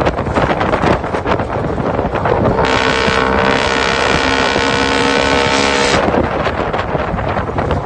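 Isuzu C240 four-cylinder diesel engine running through a four-divider lamigo muffler, its exhaust pulsing rapidly and steadily. A third of the way in, a steady pitched tone with many overtones sounds over it for about three seconds, then cuts off.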